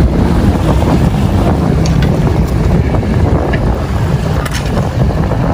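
Wind buffeting the microphone in a steady low rumble, over sea water washing against the rocks.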